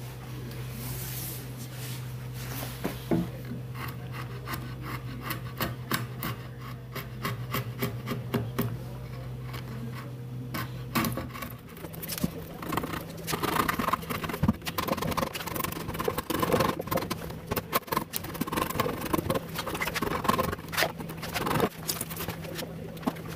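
Hand brushing and scraping loose wood chips out of a freshly routed housing in a timber beam: a busy run of small clicks, rustles and rubs, heavier in the second half, over a steady low hum.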